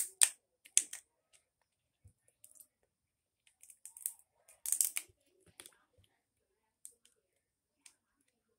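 Crab leg shells cracking and snapping as they are bitten and broken apart by hand. A few sharp cracks come near the start, and a louder cluster follows about four to five seconds in.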